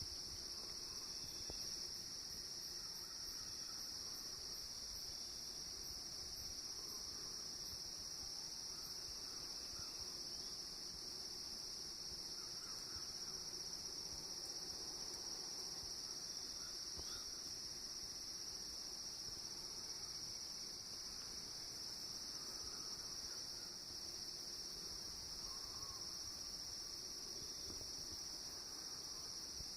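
Crickets trilling in a steady, unbroken chorus, with a few faint scattered chirps underneath.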